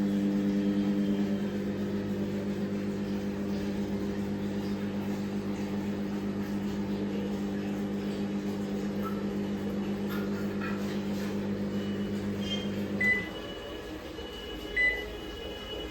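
LG microwave oven running with a steady electrical hum, then shutting off abruptly near the end, followed by two short beeps. This is a test run of the repaired oven.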